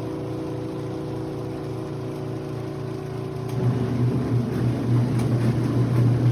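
Motor of a compact twin-tub portable washing machine running with a steady hum, which grows louder and rougher about three and a half seconds in.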